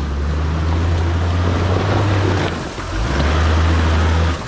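Four-wheel-drive vehicle's engine running steadily under load on an off-road trail, its low drone dipping briefly twice, about two and a half seconds in and near the end, as the throttle eases.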